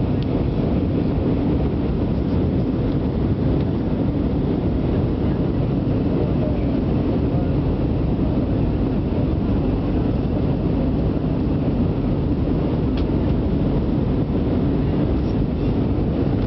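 Steady cabin rumble of an Airbus A318 airliner in descent: engine and airflow noise heard inside the cabin at a window seat over the wing, even and unchanging.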